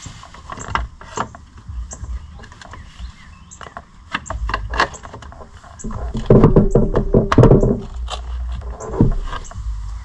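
Hand work on an ATV's engine case around the front sprocket: scattered metallic clicks and knocks of tools and parts. About six seconds in comes a louder two-second stretch of rapid rattling, such as a ratchet wrench turning.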